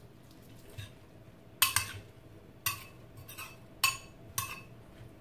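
Metal spoon clinking against a ceramic bowl while tossing a salad: several sharp clinks, the first and loudest about a second and a half in.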